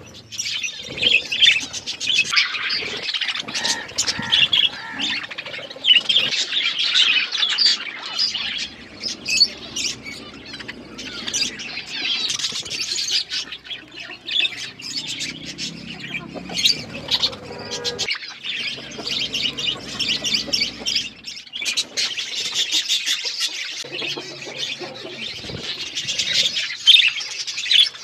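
A flock of budgerigars chattering continuously, a dense mass of chirps and squawks, with scattered sharp clicks among them.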